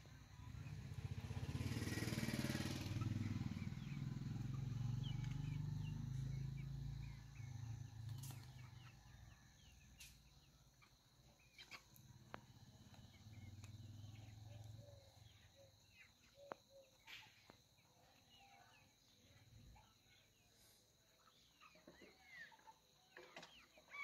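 Hens foraging, with scattered soft clucks and short calls, and one clearer hen call at the very end. A low rumble swells in the first second and fades away by about eight seconds in.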